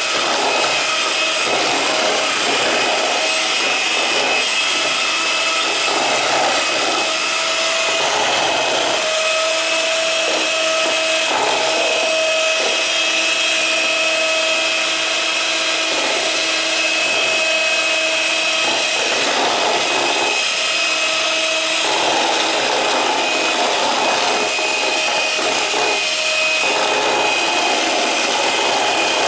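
Electric hand mixer running steadily with a motor whine, its beaters whipping royal icing (egg white, lemon juice and powdered sugar) in a stainless steel bowl; the sound shifts as the beaters move around the bowl.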